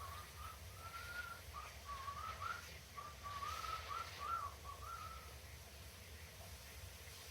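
Cockatiel whistling a tune, a string of short rising and falling notes that stops about five seconds in.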